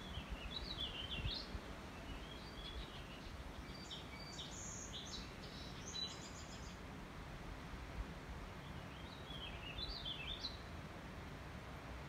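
Songbirds singing in short, quick warbling phrases, heard four or five times, over a steady low background rumble.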